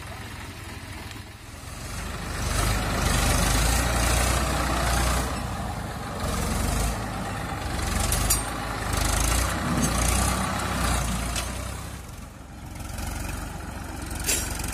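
Diesel farm tractor engine running as it pulls a trailer across a field, growing louder about two seconds in and easing off about twelve seconds in. Two short sharp knocks, one about eight seconds in and one near the end.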